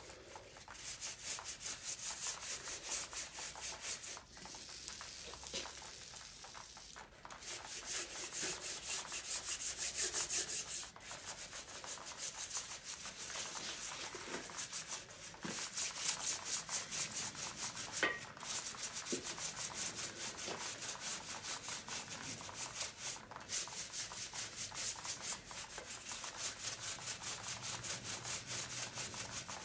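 Stiff yellow nylon bristle brush scrubbed by hand back and forth over a wet, degreaser-soaked cast-iron small-block 350 engine block, in a quick run of scratchy strokes with a few brief pauses.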